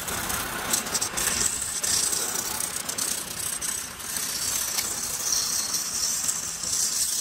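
A hand-held turning tool cutting the outside of a large wooden blank spinning on a lathe: a steady, rough, hissing scrape as shavings tear off, with a few small ticks.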